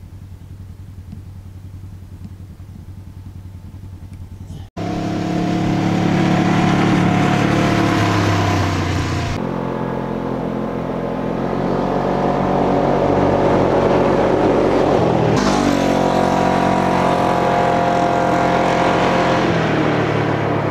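UTV engine running as the side-by-side drives along a gravel road and passes close by. The engine is loud and its note shifts as it goes. For the first few seconds there is only a quieter steady hum, then the level jumps suddenly.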